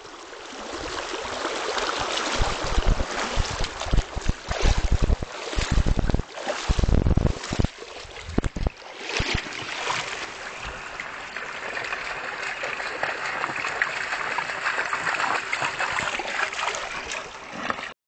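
Running river water, a steady rushing and gurgling. For several seconds in the first half, loud low rumbles and knocks on the microphone cut across it.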